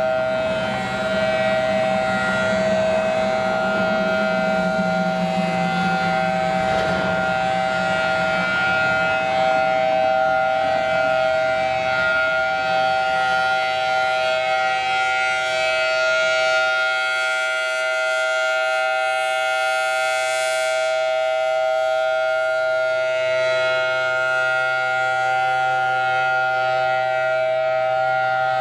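Federal Signal Thunderbolt 1000T supercharged outdoor warning siren sounding during a test, holding one steady, loud pitch without rising or falling.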